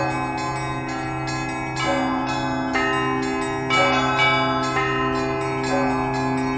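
Russian Orthodox church bells rung by hand: small bells chime continually over the sustained hum of a large bell, and heavier strikes land about once a second.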